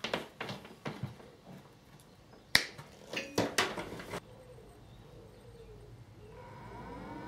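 A series of sharp clicks and taps from handling the wire and small tools, the loudest about two and a half seconds in. Near the end, a small computer power-supply cooling fan whirs up, its pitch rising and then holding steady as it starts turning on solar power once its wires are joined.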